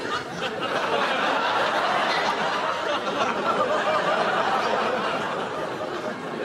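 Studio audience laughing continuously, a dense crowd of chuckles and laughs that eases slightly near the end.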